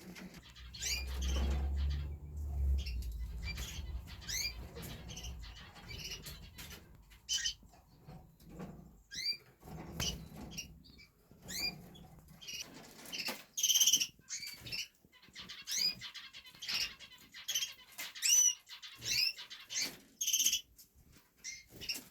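Caged zebra finches and canaries calling with many short, repeated upward chirps, with a low rustle and fluttering in the first few seconds.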